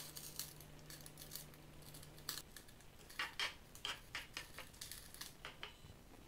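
Chopped garlic tipped from a small glass bowl into a nonstick frying pan, then a spatula stirring diced onion and garlic in the pan: a string of faint short scrapes and clicks.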